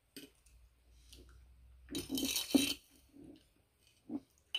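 Eating sounds over a juicy ripe mango at the table: one short noisy burst about two seconds in, with a few faint small clicks around it.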